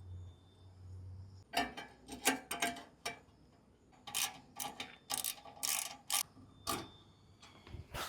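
Metal clicks and scraping as an exhaust turbo whistle is fitted onto the end of a car's exhaust pipe and its clamp bolt tightened, in irregular clusters after a low hum in the first second and a half.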